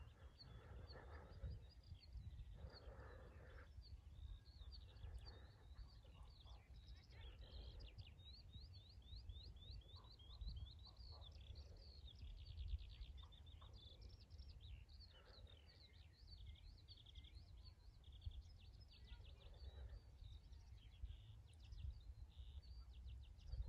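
Small songbirds chirping and trilling, with many quick high chirps and a fast, even trill a little past halfway, over a faint low rumble.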